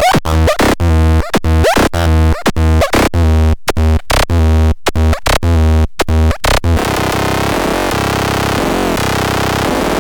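Synthesized electronic sounds: rapidly chopped, stuttering pitched tones over a heavy bass, switching about two-thirds of the way through to a continuous dense, noisy wash with wavering tones.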